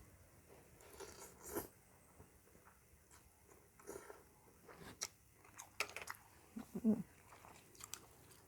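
A person chewing and biting a mouthful of som tam (spicy papaya salad) with rice noodles close to the microphone: faint, with scattered short wet clicks and small crunches.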